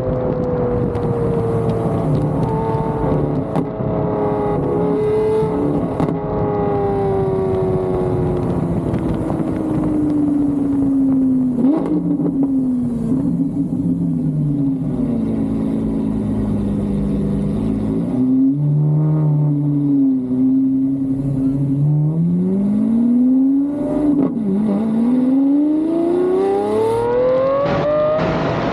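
A car's engine note falling slowly as the car slows, with a few quick jumps in pitch in the middle. It then climbs steeply as the car accelerates hard near the end.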